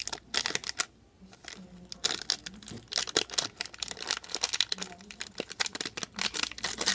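Plastic packaging crinkling and crackling in quick, irregular bursts as a squeeze toy is handled inside it.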